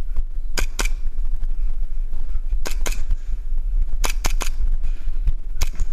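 A game pistol firing sharp pops in quick pairs: two shots about half a second in, two near the middle, a burst of three about four seconds in, and two more near the end, over a steady low rumble on the microphone.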